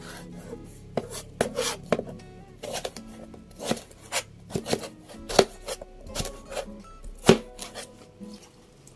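Chef's knife slicing cucumber into long strips on a plastic cutting board: a run of irregular knife strokes knocking on the board, the loudest about seven seconds in.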